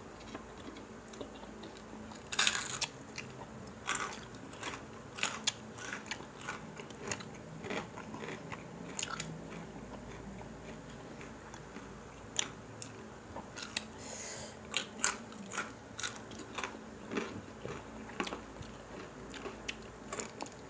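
Close-up eating sounds of crispy pata, deep-fried pork knuckle, eaten by hand: irregular crunching bites and chewing, with a couple of louder, longer crunches, one about two and a half seconds in and one about fourteen seconds in.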